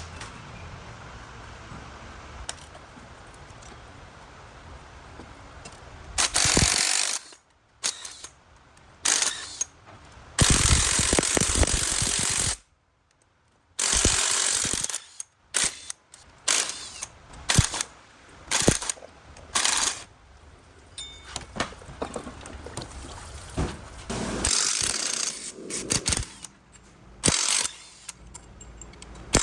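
Impact wrench running in repeated short bursts, with one longer run of about two seconds, as bolts are taken out while the front of an LS V8 is stripped down for a cam swap.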